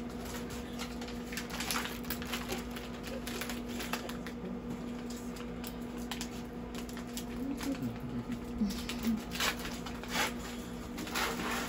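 Steady electrical hum from operating-room equipment, with light rustling and small clicks of surgical drapes and instruments being handled.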